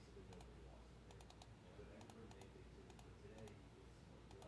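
Faint, scattered clicks of a computer mouse and keyboard, several in quick groups, over a low hum.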